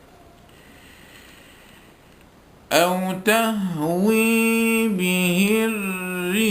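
Quran recitation by a male reciter in the melodic, unaccompanied style: after a pause of faint hiss, his voice comes in about three seconds in on a long held note that bends and glides slowly through ornamented turns.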